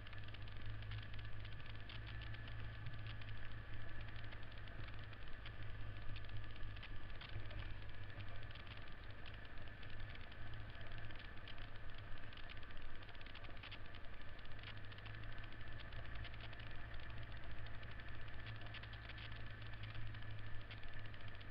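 Vintage Honda XL single-cylinder four-stroke dirt bike engine running at a steady pace while the bike is ridden. Many small clicks and rattles sit over the engine sound.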